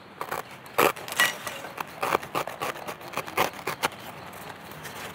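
Irregular rustling, snapping and scraping in leaf litter and undergrowth: a quick run of short crackles and clicks with no steady rhythm.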